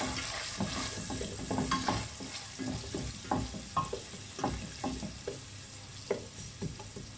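Chopped onion sizzling in hot oil in a stainless steel pot while a wooden spoon stirs it, the spoon scraping and knocking on the pot bottom in short strokes. The onion is being sautéed to light brown.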